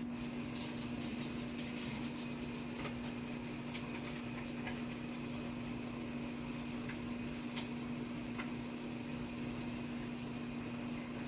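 Steady low hum of a microwave oven running, with a faint hiss and a few light ticks over it.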